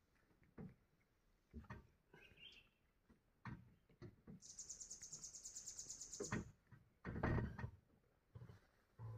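Faint outdoor sounds: a high, rapid pulsing trill, about ten pulses a second, lasting about two seconds in the middle, with a brief chirp before it and scattered soft, dull thumps and rustles.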